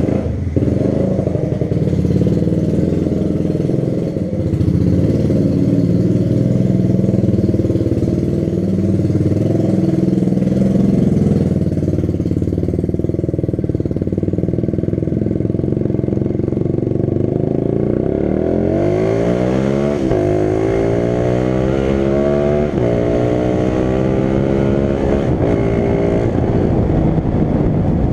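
Small motorcycle with a straight-pipe exhaust, a ram-air intake and a carburettor re-jetted to a 180 main jet and 52 pilot jet, running at low throttle. About two-thirds of the way in it accelerates hard, its pitch climbing in several rising sweeps as it goes up through the gears.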